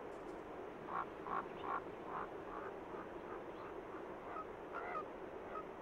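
Ravens calling: a quick run of about five harsh croaks a second or so in, then fainter, shorter calls.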